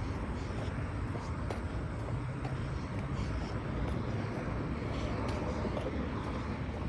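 Steady vehicle noise: an even rumble and hiss with a low hum, with a few faint clicks.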